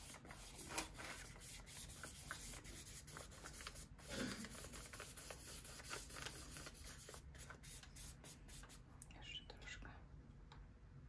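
Faint rubbing and scratching of gesso being worked onto a paper art-journal page, with many small taps scattered throughout.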